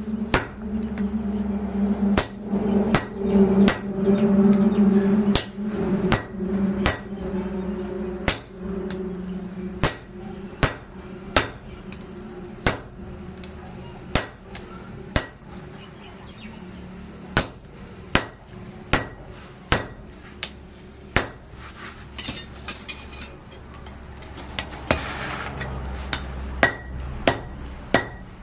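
Blacksmith's hammer striking iron on an anvil in a steady run of blows, a little more than one a second, each with a short metallic ring. A steady machine hum runs underneath at first and fades out about nine seconds in.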